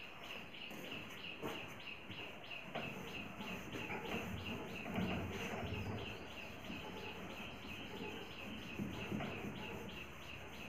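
A board duster rubbing across a whiteboard in repeated wiping strokes, from about halfway through. Behind it runs a steady background chirping, about three chirps a second.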